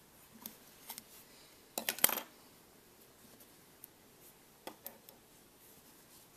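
Scissors and a wooden crochet hook being handled on a cloth-covered table: a few light clicks, then a short, louder clatter about two seconds in, and a few more small clicks near the end.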